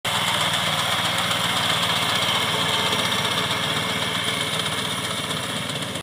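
Small engine of a walk-behind wheat reaper running steadily.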